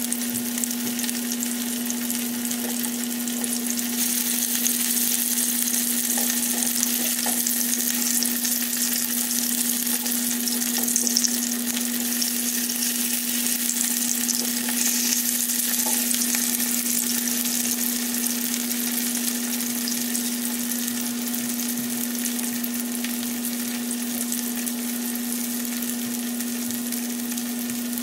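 Skinless longganisa (Filipino sweet pork sausage) sizzling and crackling in hot oil in a nonstick frying pan, with a fork now and then knocking lightly as it turns the pieces. A steady low hum runs underneath.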